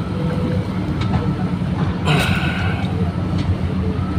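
A plastic bag crinkles once, briefly, about two seconds in, as hands handle it over a cooking pot. Under it runs a steady low rumble.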